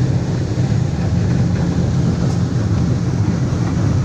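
Passenger speedboat under way at speed, heard from on board: its engines give a loud, steady low drone over the rush of the hull through the water.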